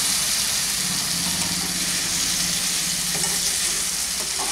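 Brinjal curry sizzling in an aluminium kadai just after a little water has been added, with a spatula stirring it near the end. A low steady hum runs under the sizzle for a couple of seconds in the middle.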